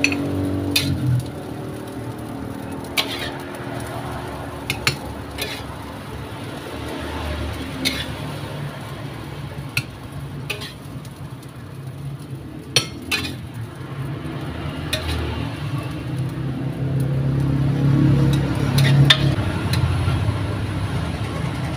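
Metal spatula scraping and clinking against a wok and ceramic plates as fried rice is dished out, in scattered irregular taps over a steady low rumble.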